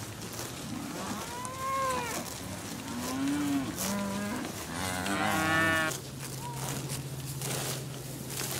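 Holstein-Friesian dairy cows mooing: three long calls that rise and fall in pitch, the last and loudest about five seconds in, then a faint short one. A steady low drone sets in about six seconds in.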